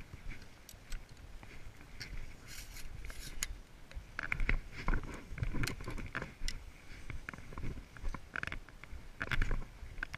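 Footsteps crunching irregularly on river-bank gravel, louder from about four seconds in, over a low rumble of wind on the microphone.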